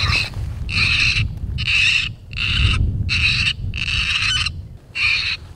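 Electronic predator caller playing a high-pitched animal cry, repeated about seven times with each cry about half a second long, used to lure coyotes. A low rumble runs underneath.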